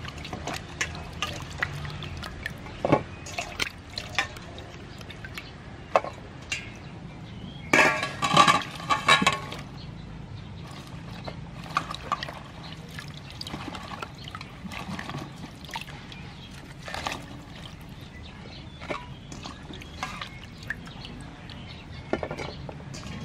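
Hands swishing and splashing water in a stainless steel bowl while washing green onions and red chilies, with scattered splashes and drips, loudest about eight seconds in.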